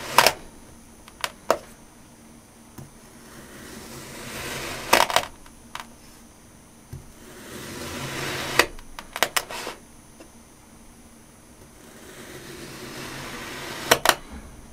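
A knife blade slicing down through a packed block of kinetic sand, three slow cuts: each a grainy crunch that grows louder and ends in a few sharp clicks.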